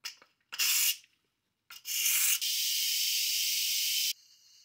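Instant Pot pressure-release valve venting steam: quick release of pressure right at the end of cooking. A few short hissing spurts as the valve is flipped open, then a steady loud hiss of escaping steam that drops off sharply to a fainter hiss with a thin whistle near the end.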